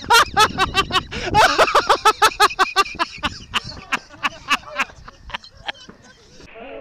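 Fireworks crackling and popping in a fast string of sharp cracks, several a second, which thin out and die away over the last few seconds.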